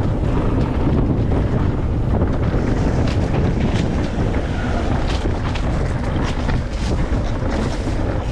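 Wind buffeting a GoPro's microphone while a mountain bike rides fast along a dirt singletrack, with scattered sharp clicks and rattles from the bike bouncing over the trail.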